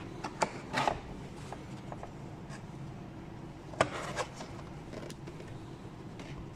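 A few short, sharp clicks and knocks, as of plastic parts being handled and fitted, the loudest a little under four seconds in, over a steady low hum.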